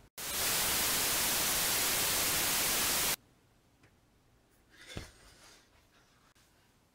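A loud burst of static-like white noise lasting about three seconds, which starts and cuts off abruptly: an inserted static sound effect. After it, only a faint soft thump about five seconds in.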